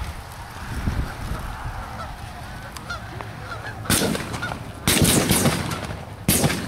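Canada geese honking: faint calls at first, then loud, harsh bursts of honking about four and five seconds in and again near the end.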